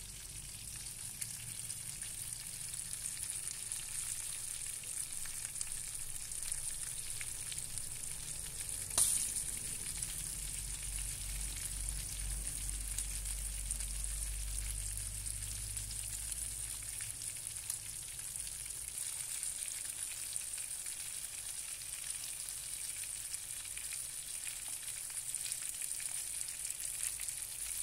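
Fish pan-frying in hot oil in a nonstick frying pan: a steady high sizzle, with one sharp knock about nine seconds in.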